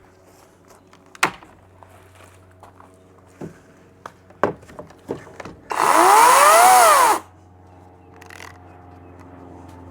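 Chainsaw of a drop-mounted firewood slicer run once for about a second and a half, its pitch rising and then falling, then stopping abruptly. Before it come scattered knocks and clicks over a low steady hum.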